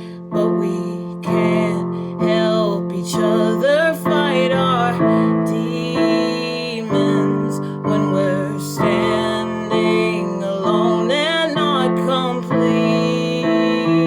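A piano playing chords struck about once a second, with a woman singing a wavering melody over them.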